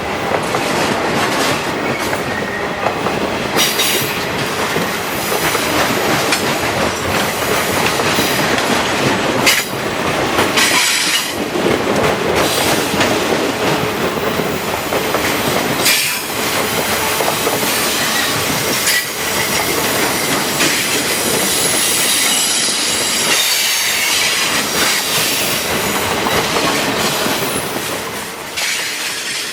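CSX freight train rolling past close by, wheels clacking over the rail joints in an uneven rhythm, with a high wheel squeal coming and going in the later part.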